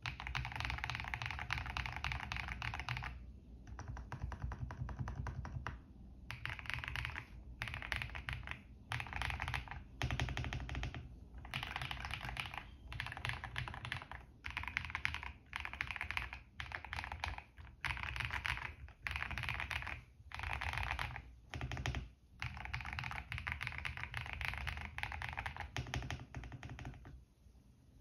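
Typing on a GMK67 mechanical keyboard with prelubed Dangkeebs Birthday Cake tactile switches, a polycarbonate plate, stock foams and PBT keycaps, giving a creamy sound: fast runs of keystrokes in bursts of one to three seconds broken by short pauses, stopping about a second before the end.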